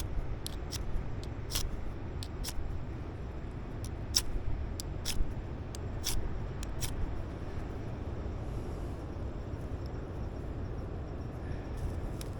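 Flint and steel being struck again and again to throw sparks onto tinder: a dozen or so sharp, irregular clicks over the first seven seconds, then none. A steady low rumble runs underneath.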